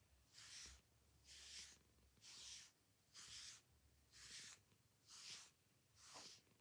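A sleeping cat snoring: faint, airy breaths coming about once a second, evenly spaced, with a short falling whistle near the end.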